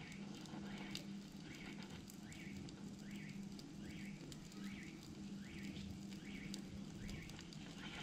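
Fire burning inside a microwave oven, with faint scattered crackles and pops. Under it runs a steady low hum, and a short high chirp repeats every half second or so.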